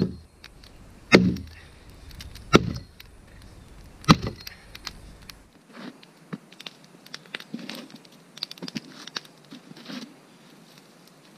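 An axe chopping into a dry fallen log: four heavy blows, roughly one every second and a half. After about five and a half seconds, only lighter crackling and rustling at a small campfire.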